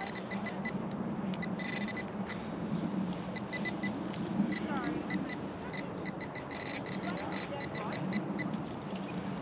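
Metal detector beeping in short, rapid chirps that come in clusters as it is swept over a buried target, with a steady low hum underneath.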